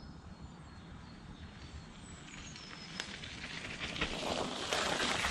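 Mountain bike rolling down a muddy, leaf-covered dirt trail towards the listener, its tyre noise rising over the last two seconds, with a single sharp click about three seconds in. A few faint bird chirps are heard early on.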